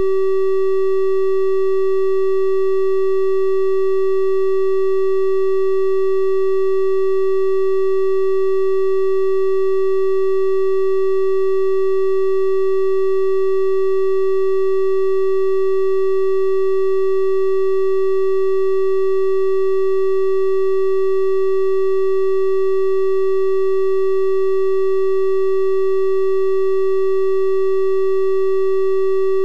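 Synthesized 384 Hz triangle-wave tone held at one steady pitch, with faint higher overtones above the main note.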